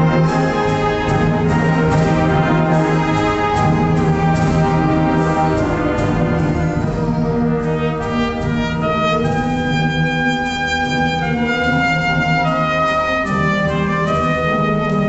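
Solo trumpet with a symphonic wind band playing a trumpet concertino. For about the first half the full band plays with sharp rhythmic accents. Then the accompaniment thins and long held notes move up and down step by step.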